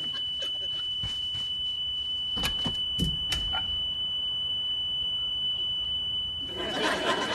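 Smoke alarm sounding one continuous high-pitched tone, with a few sharp knocks a little over two and three seconds in. A broad rush of noise rises under the tone near the end.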